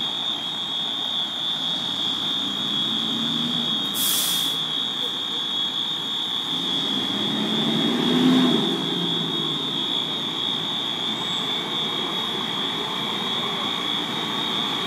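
Building fire alarm sounding one continuous high-pitched tone, with a short hiss about four seconds in.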